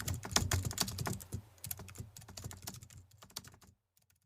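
Rapid, irregular small clicks and taps over a faint low hum, thinning out and stopping abruptly shortly before the end.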